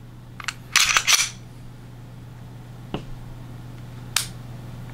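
Dry-fire clicks from an unloaded Heckler & Koch USP 45 Compact Tactical pistol. The slide is racked in a quick cluster of metallic clicks about a second in, then single trigger clicks follow near three and four seconds as the trigger resets and breaks. The reset has little travel.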